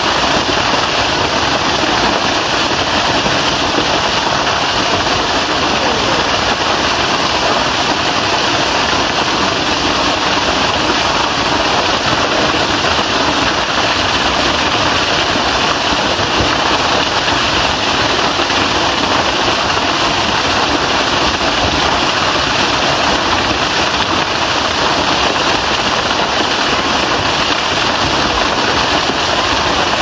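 Waterfall pouring onto a boulder and into a rocky plunge pool: a loud, steady rush of falling, splashing water.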